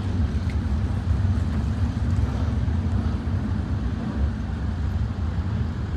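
A field of sprint cars running practice laps on a dirt oval at speed: a steady, dense engine rumble from the V8s with no single car standing out.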